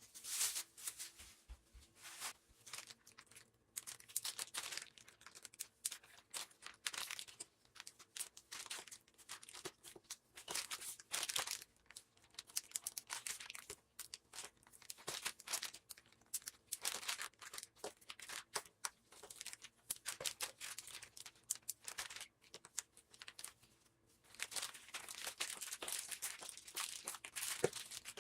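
Plastic food packaging (wrap or bags) being handled, crinkling and rustling in irregular bursts with short pauses, and a longer stretch of rustling near the end.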